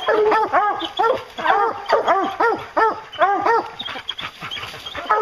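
English bear hounds barking in a rapid, overlapping string of short calls, several a second, from more than one dog.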